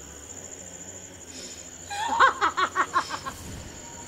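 A woman laughs in a quick run of short bursts, starting about two seconds in and lasting nearly two seconds. A steady, high insect trill sounds throughout.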